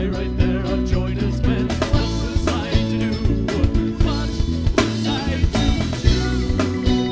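Band music with a steady drum beat, bass and guitar.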